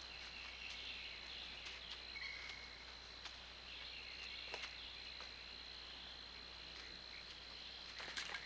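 Faint night-forest ambience: a steady high insect drone, with scattered light snaps and rustles of footsteps through undergrowth and a couple of short chirps.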